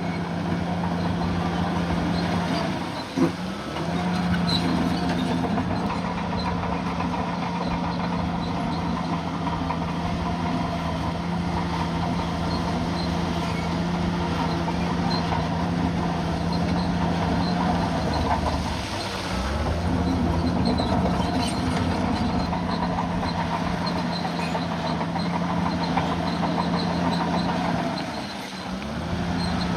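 Bulldozer's diesel engine running steadily under work. Its note sags and recovers three times, briefly: about three seconds in, around the middle and near the end.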